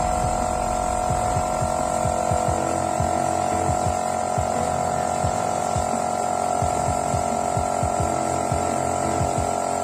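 Small airbrush compressor running: a steady motor hum with irregular low pulses underneath.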